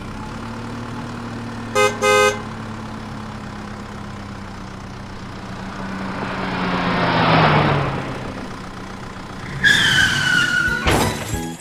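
Cartoon vehicle sound effects: a motor vehicle engine running steadily, with two short horn toots about two seconds in. The engine swells and drops in pitch as it passes by, loudest around seven seconds in. A high, slightly falling squeal follows near the end.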